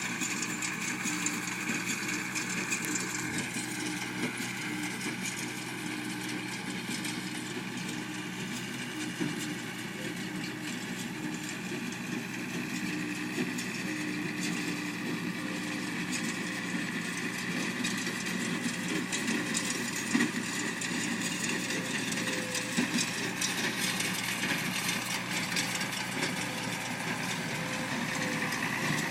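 Tractor engine running steadily while pulling a working John Deere 24T hay baler, with a mechanical clatter from the baler.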